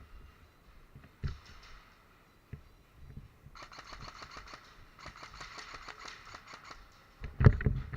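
An airsoft gun firing on full auto: a rapid, even string of sharp clicks, about ten a second, lasting some three seconds, followed near the end by loud low thumps, like a bump or a handled microphone.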